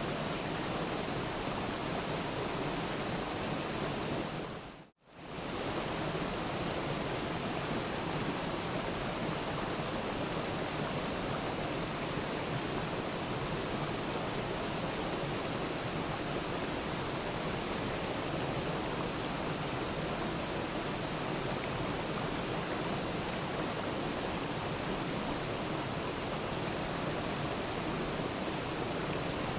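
Waterfall: a steady, even rush of falling water. About five seconds in it fades out almost to silence for an instant and comes straight back.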